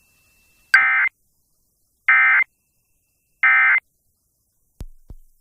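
Emergency Alert System end-of-message data burst: three short bursts of digital warbling tones about 1.3 seconds apart, each about a third of a second long, marking the close of the alert. Two short clicks follow near the end.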